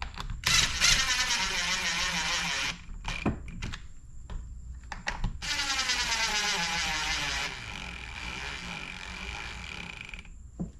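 Ratchet driver with a Torx bit clicking as the screws are run down, in two stretches of about two seconds each, with a few sharp knocks in between.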